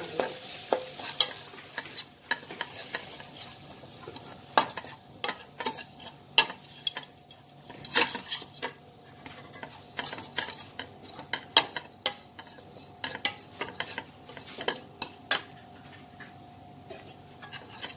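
A steel slotted ladle scraping and clicking irregularly against a kadai as gram flour and spices are stirred and roasted in ghee, with a quiet sizzle underneath.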